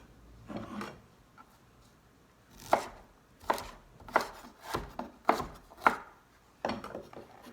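Knife chopping through blanched broccoli on a cutting board: about seven sharp strokes, roughly one every half second or so, starting near three seconds in.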